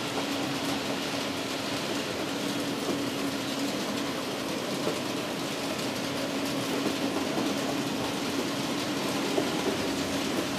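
HO scale model railway turntable rotating with a steam locomotive on its bridge: a steady drive hum with faint scattered ticks over an even hiss.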